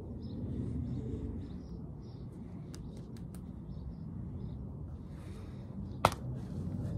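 A flour tortilla wrap slapped once against a person's face: a single sharp smack about six seconds in, over a steady low background rumble.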